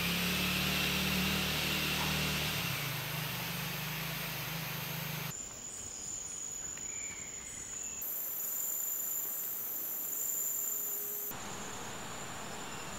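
Rainforest insects calling in a steady high-pitched drone over a hiss. A low steady hum lies beneath it for the first five seconds, and the background shifts abruptly a few times.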